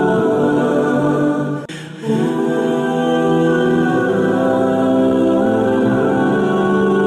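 Slow, choir-like vocal music: layered voices holding long notes that shift in pitch every second or so, with a brief drop about two seconds in.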